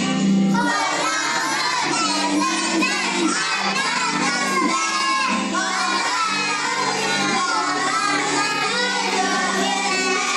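A group of young children singing over backing music with held accompaniment notes.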